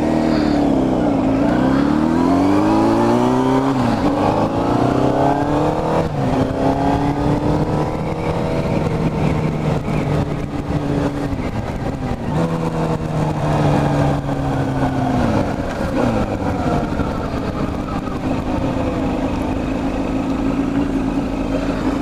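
1997 Yamaha YZF600R's inline-four, running through a shorty exhaust pipe with a single baffle, pulling through the revs with repeated drops in pitch as it shifts gears, then holding a steady cruise for the last few seconds. Wind rush buffets the microphone throughout.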